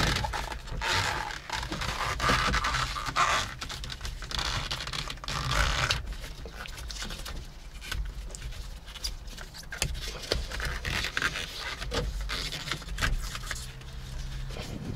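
A universal steering wheel cover being stretched and worked onto a steering wheel rim by gloved hands: irregular scraping and rubbing, with short ticks and rustles, in uneven bursts.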